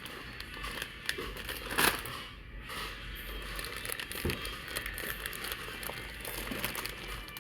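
Crinkling and rustling as packaging is handled, with one louder crackle about two seconds in.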